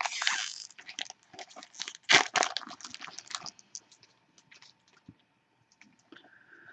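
Crackling and crinkling of a trading card pack's wrapper being torn open and the cards handled, loudest about two seconds in, then thinning to sparse small clicks.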